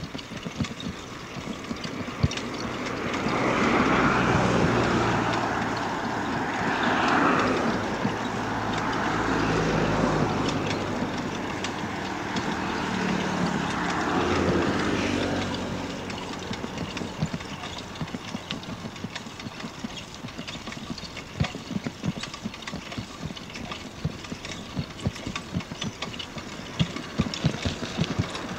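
Motor vehicles passing on the road, their engines swelling and fading several times between about 3 and 16 seconds in. Under them runs a constant irregular clicking and rattling from the ride.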